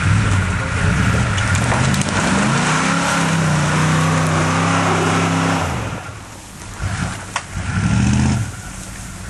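Square-body Chevrolet Suburban's engine under hard throttle as it pushes through mud. The revs rise about two seconds in, hold high for around three seconds, then drop away, with a second short rev-up and fall near the end.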